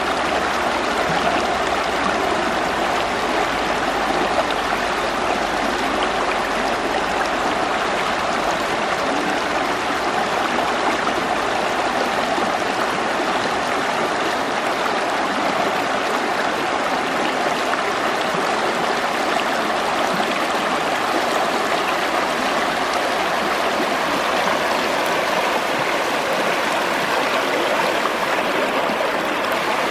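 Schwechat river flowing: a steady, even sound of running water that keeps up without change.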